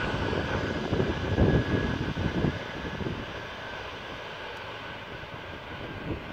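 Four jet engines of a Boeing 747-400 running at taxi power: a steady rushing hiss with a thin high whine held on one pitch. Gusty low rumbles swell in the first couple of seconds, then ease off.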